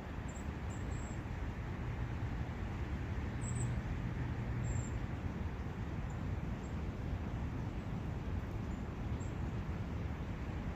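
Steady rushing of a forest brook with a low rumble underneath that swells slightly a few seconds in. Faint, short, high chirps of small birds come now and then.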